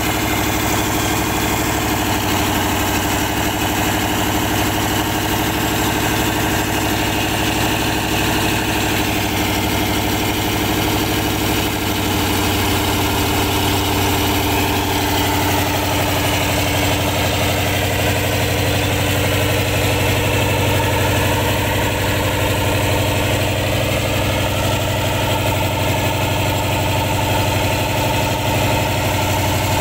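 A sand-dredging boat's engine runs steadily under load, driving the suction pump that draws up sand and water. Its tone shifts slightly about halfway through.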